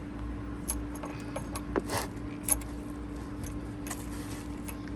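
Scattered light clicks and clinks of equipment being handled on a radio workbench, about eight in all, over a steady hum.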